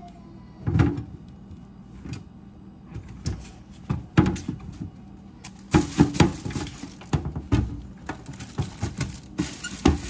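Vegetables and bagged produce being set into a clear plastic fridge crisper drawer: irregular knocks and thunks against the plastic, with crinkling of a plastic produce bag around six seconds in and again near the end.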